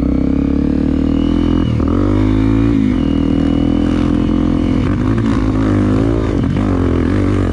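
Single-cylinder trail motorcycle engine under hard throttle, accelerating and climbing a steep dirt embankment. The revs dip and climb back three times: about two seconds in, about five seconds in and near the end.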